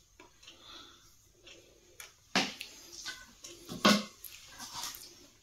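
Raw chicken pieces being laid into a bowl of wet masala marinade: a few soft, wet slaps, the loudest about two and a half and four seconds in.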